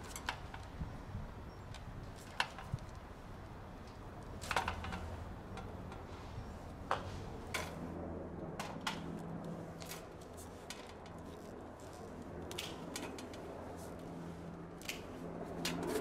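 Scattered metallic clicks and clinks of hand tools on an air conditioner's fan motor and sheet-metal frame during disassembly, irregular and a few seconds apart. A low steady hum runs underneath, firmer from about halfway through.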